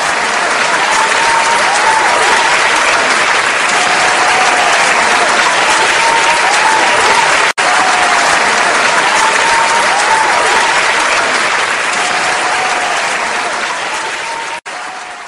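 Audience applauding loudly and steadily, with voices cheering over the clapping. The sound drops out for an instant twice.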